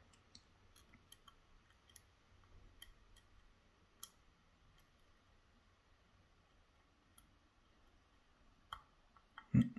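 Faint scattered clicks and scrapes of a finger pin pick rotating the finger pins inside a Schlage Primus lock cylinder held under tension. Near the end a single louder thud, a pin setting.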